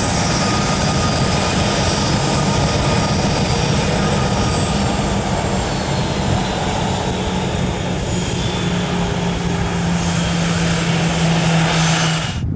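Airbus A321 jetliner's CFM56 turbofan engines at high thrust on the takeoff roll, a loud steady rumble with a high whine that falls slowly in pitch as the aircraft passes. The sound cuts off suddenly at the end.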